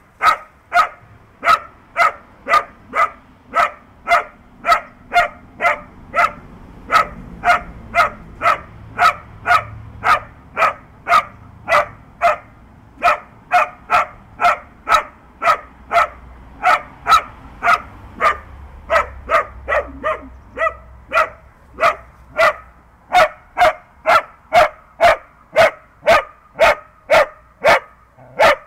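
Small black-and-tan dog barking steadily at a badger it holds at bay, about two sharp barks a second without a break.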